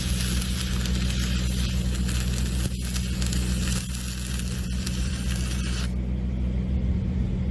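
Electric arc welding: a steady sizzling crackle from the arc over a low machine hum. The arc cuts off about six seconds in, leaving the hum.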